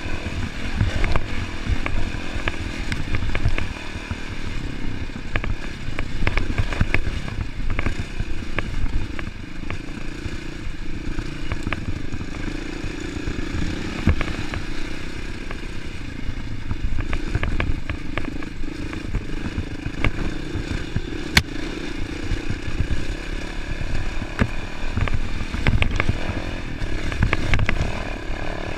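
Off-road dirt bike engine running under constantly changing throttle as it climbs and bumps over a rocky trail, with frequent knocks and clatter from the bike hitting rocks and roots.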